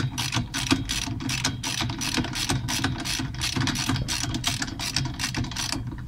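Ratchet wrench clicking rapidly, about five clicks a second, as it tightens the centre nut holding the rotor onto the shaft of an LG inverter direct-drive washing machine motor.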